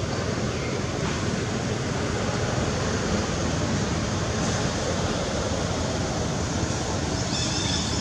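Steady rushing noise, with a brief high-pitched squeak near the end.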